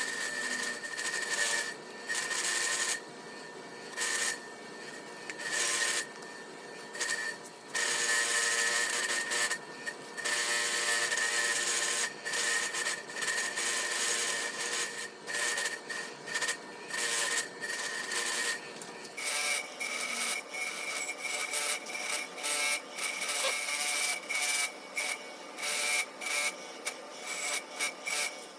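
Power-driven wire wheel running with a steady high whine and scrubbing the metal of an old vise in repeated passes of a second or two, the scratchy hiss swelling with each pass. About two-thirds of the way through, the whine steps up slightly in pitch.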